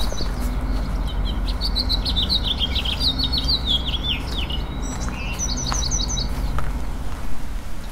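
Small songbirds singing: a run of quick, high chirping notes from about one to four seconds in, then a short burst of repeated notes near six seconds, over a steady low rumble.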